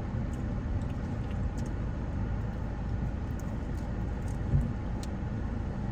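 Car on the move heard from inside the cabin: a steady low rumble of road and engine noise.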